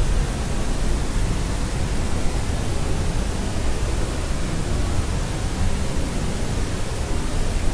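Steady white noise for sleep: an even, unchanging rushing hiss, heavier in the low end.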